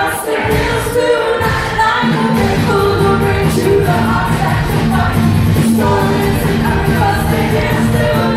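Live band music in a concert hall: women singing over guitar and drums, with a steady, pulsing bass line coming in about two seconds in.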